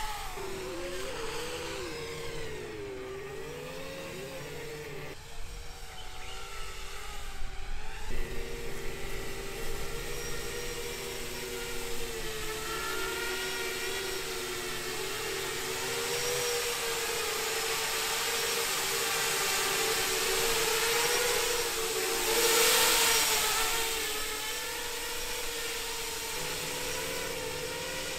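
A 7-inch FPV quadcopter's brushless motors and propellers buzzing in flight, the motors set on tilted mounts. The pitch wavers up and down with throttle in the first few seconds, then holds a steadier whine. A louder rushing surge comes a little over 22 seconds in.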